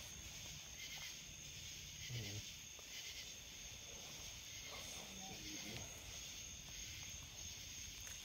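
A steady, high-pitched chorus of night insects, with faint murmured voices about 2 seconds in and again around 5 seconds in.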